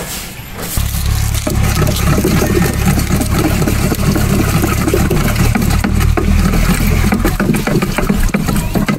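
Steady low rumble, with water sloshing and knocking as a wooden stick stirs fish amino acid into the water in a plastic knapsack sprayer tank.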